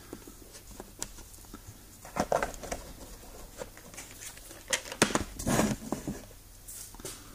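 Light clicks and clacks of a small clear plastic parts box being handled and set down on a table, with soft rustling of wire being handled.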